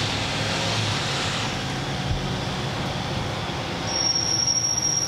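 Steady rushing noise over a low hum, with no speech.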